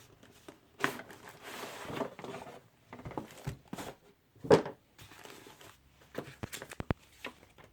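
Cardboard box and paper packaging being handled: rustling and sliding, with one louder knock about four and a half seconds in and a few quick clicks near the end.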